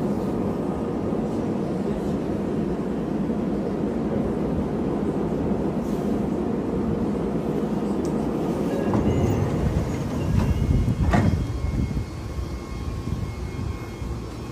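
Meitetsu commuter train slowing into a station, heard from inside: a steady low rumble of the running gear and brakes. About nine seconds in the sound grows louder and rougher, with a few clicks and a sharp knock as the train comes to a stop and the doors open. After that it falls to a quieter hum.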